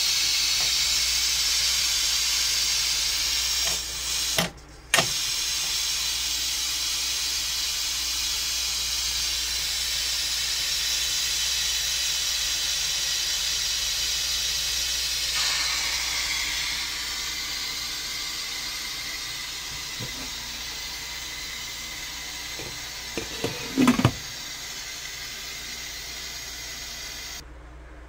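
Stovetop pressure cooker hissing steadily as steam escapes through its lid valve. The hiss is broken briefly about four seconds in, then weakens over the second half as the pressure drops, and stops suddenly near the end. A few sharp clicks from the lid come just before it stops.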